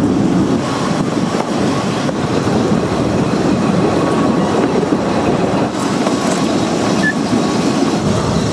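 Narrow-gauge Welsh Highland Railway carriage running along the track, a steady rumble and rattle of wheels on rail heard from on board the moving train.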